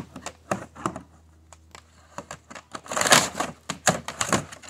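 A dog splashing in a shallow pool of water: quick, irregular splashes and clicks that thin out to a lull about a second in, then grow busy and louder from about three seconds in.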